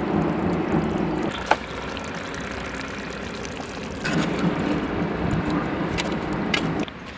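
A metal ladle stirring and scooping thick beef curry in a metal pot, over a steady low hum. There are sharp clinks of the ladle against the pot, one about a second and a half in and two near the end.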